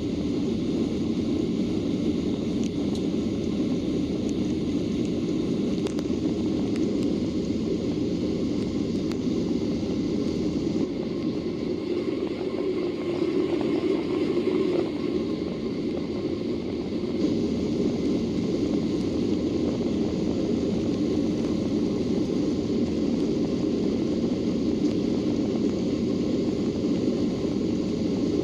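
Steady roar of a Boeing 737-800's CFM56 engines and rushing air, heard from inside the cabin.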